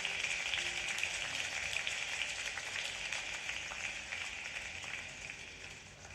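Audience applauding, a dense patter of clapping that slowly fades away toward the end.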